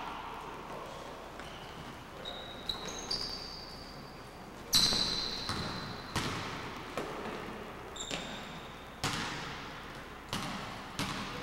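Basketball bouncing on a hardwood gym floor, irregular bounces about a second apart with the loudest about halfway through, each echoing in the large gym. Short high squeaks of sneakers on the court come in between.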